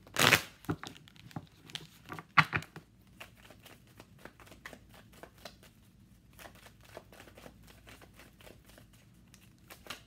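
A deck of tarot cards being shuffled by hand: a riffle with a loud burr just after the start and another about two and a half seconds in, then a long run of soft card taps and slides as the cards are shuffled hand to hand.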